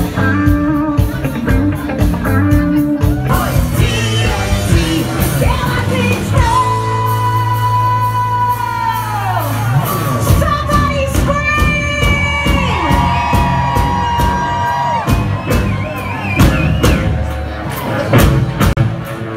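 Live rock band playing: drum kit, electric guitar and bass under a singer. The singer holds a long note starting about six seconds in that falls away about three seconds later, and holds another a few seconds after that.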